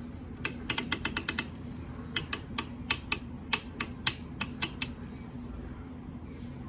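Mechanical film counter from a film editing machine clicking: a quick run of about seven sharp clicks, then single clicks a few times a second that stop about five seconds in. A steady low hum lies under them.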